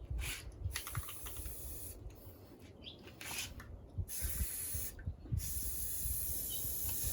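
Aerosol spray paint can spraying in several short bursts with brief pauses, then one long steady spray from about five seconds in.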